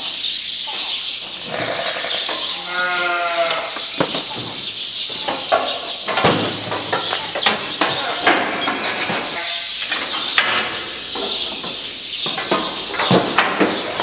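Ewes bleating in a sheep handling chute, with one long clear bleat about three seconds in. Sharp knocks and clanks come from the metal chute and gates as the sheep are worked through.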